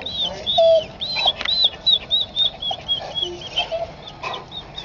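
A quick run of short, high-pitched chirping calls from an animal, each rising and falling, about three a second.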